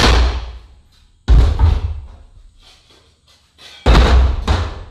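Sledgehammer striking the cut-open steel shell of an A/C compressor to knock the parts loose: three heavy metallic blows, one right at the start and two more about a second and a half apart, each ringing out for about a second.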